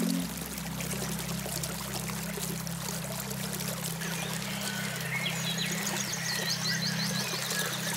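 Flowing water under a steady low electronic drone (the 'alpha wave' tone layer), which shifts to a lower set of tones just after the start. From about halfway, quick runs of high chirping calls come in over the water.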